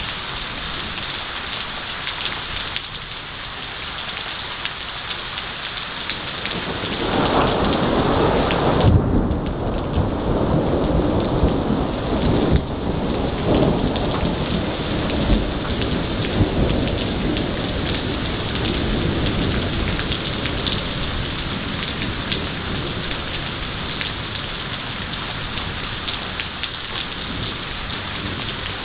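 Heavy rain falling steadily, with a long peal of thunder. The thunder builds about seven seconds in, is loudest a couple of seconds later, then rumbles on and fades over the next ten seconds or so.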